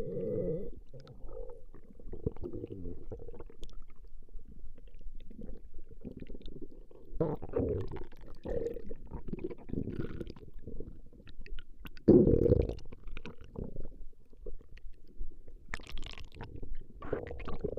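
Human stomach growling: a run of irregular low gurgles and rumbles, the loudest about twelve seconds in.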